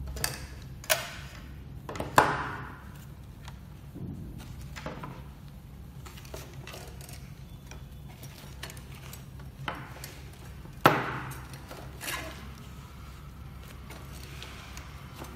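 Projector parts being handled and set down on a workbench: a few sharp plastic clicks and knocks, loudest about two seconds in and again near eleven seconds, over a steady low hum.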